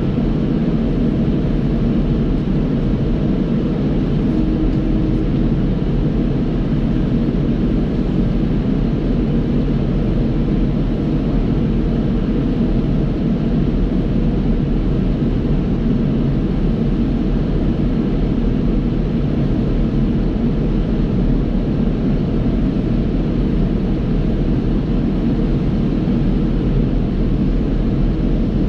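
John Deere 5075E tractor's diesel engine running steadily at working speed, driving a Krone KR250B round baler through the PTO as it picks up hay and forms a bale.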